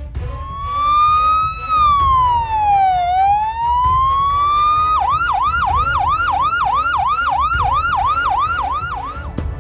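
Ambulance siren, first a slow wail rising and falling once, then switching about five seconds in to a fast yelp of about three sweeps a second, which stops shortly before the end; a low rumble runs underneath.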